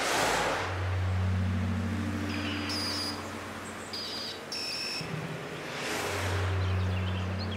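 Electronic soundtrack sound design: a whooshing swell of noise gives way to a steady low drone, and the pattern repeats about six seconds in. Short high bleeps sound between the two swells.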